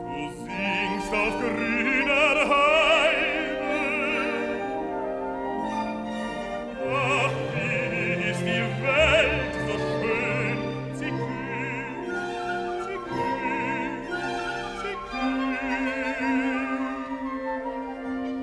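Operatic baritone singing sustained phrases with wide vibrato, in three phrases with short breaks, over a symphony orchestra of strings and winds. A low sustained orchestral note enters about three quarters of the way through.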